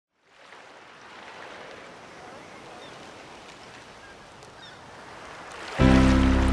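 Steady rushing noise of water and wind around a moving boat on the sea, fading in at the start. About a second before the end, background music with a heavy bass cuts in abruptly, much louder than the water.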